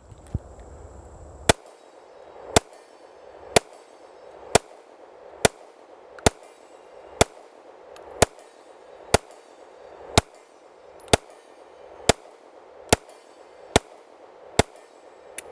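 Girsan MC28 9mm striker-fired pistol firing a string of about sixteen single shots at a steady pace of roughly one a second, with ZQI 123-grain NATO-spec ammunition.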